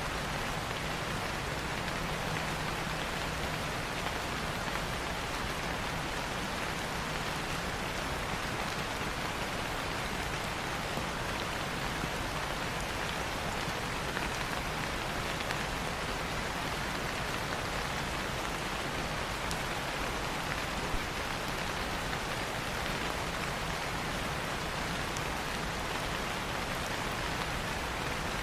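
Steady, dense rainfall hissing evenly, with one brief sharper click about three-quarters of the way through.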